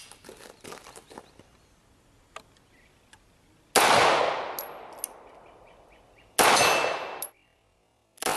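Two shots from a Taurus 9mm semi-automatic pistol, about two and a half seconds apart. The first comes about four seconds in and its echo fades over a couple of seconds; the second ends abruptly.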